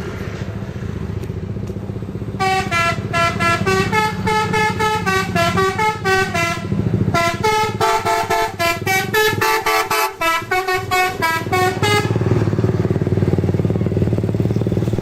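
Bus telolet horn, a set of musical air horns, playing a fast tune of short chord-like notes for about ten seconds. It starts a couple of seconds in, breaks briefly midway and stops a few seconds before the end. The bus engine runs steadily underneath.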